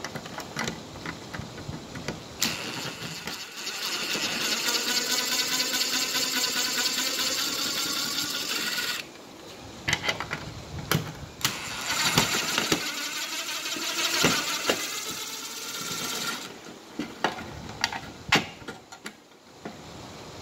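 Cordless drill motor whirring in two long runs of about six and five seconds, with sharp clicks and knocks of the tool against the plastic horn strobe housing between and after the runs.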